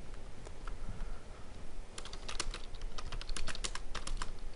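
Typing on a computer keyboard: a few scattered key clicks, then a quick, irregular run of keystrokes from about two seconds in.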